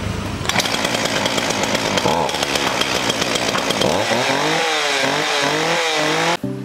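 Ryobi two-stroke gas chainsaw engine, its bar and chain removed, running at high revs and then throttled up and down so its pitch rises and falls several times. It cuts off suddenly near the end.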